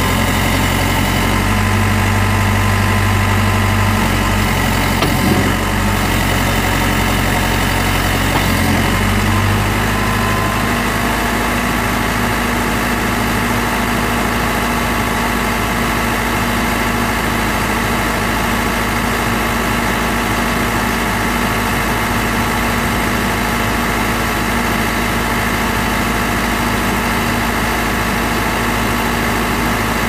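The four-cylinder diesel engine of a 2006 Case 590 Super M backhoe running at idle. Its low note shifts about nine seconds in, then holds steady.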